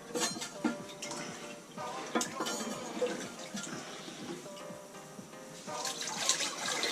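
Background music over water running in a toilet tank, with scattered clicks and knocks of tank parts being handled.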